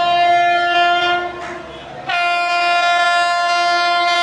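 WAP-7 electric locomotive's horn sounded in two long, steady blasts: the first about a second and a half long, then after a short gap a second, longer blast starting about two seconds in.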